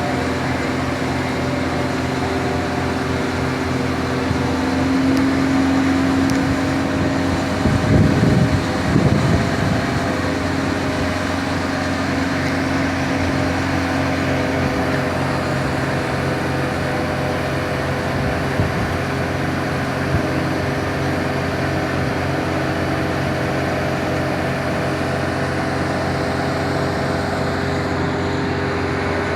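Steady mechanical hum of running engines or heavy machinery, holding several steady tones. There is a brief louder rumble about eight seconds in, and one of the higher tones fades out partway through.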